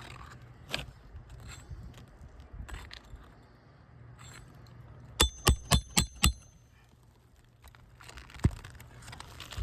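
A hammer strikes a steel nail puller six times in quick succession, about five blows a second, each with a metallic ring, working it under a roofing nail in an asphalt shingle. A single knock follows a few seconds later, with light scraping and clicks before the blows.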